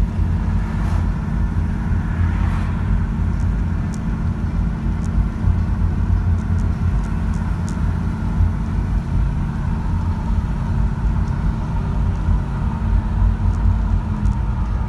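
Steady low rumble of a car's tyre and engine noise while cruising on a paved road, heard from inside the cabin.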